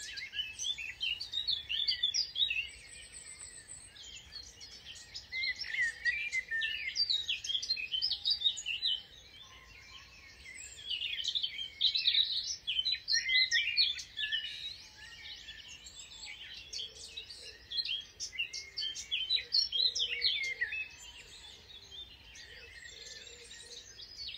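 Several songbirds singing together, a busy chorus of quick overlapping chirps and trills, easing off for a while midway and picking up again.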